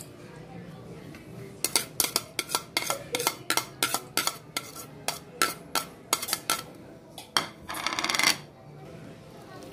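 Metal spoon tapping and scraping a plate over a stainless steel mixing bowl to knock chopped onions off: a quick, irregular run of clinks and knocks, some leaving a short ringing note, then a brief scrape near the end.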